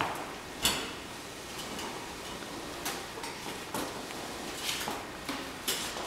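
Clunks, knocks and scraping from a metal appliance hand truck and a laundry appliance being handled and strapped together: a sharp knock near the start, then several scattered clunks and scrapes.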